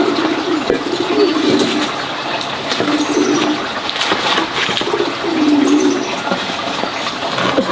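Pigeons cooing again and again, low wavering calls of about a second each, over a steady rush of running water.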